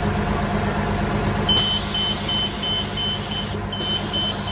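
Transit bus's diesel engine idling, with a high electronic warning beeper starting about one and a half seconds in and sounding about three times a second.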